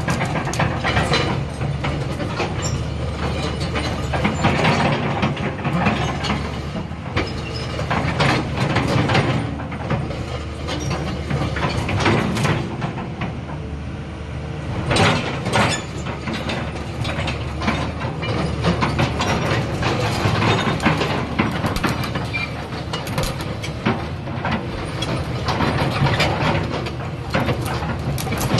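Komatsu PC200-7 tracked excavator running: a steady low diesel engine drone with frequent irregular metallic clanks and rattles from the machine's moving parts.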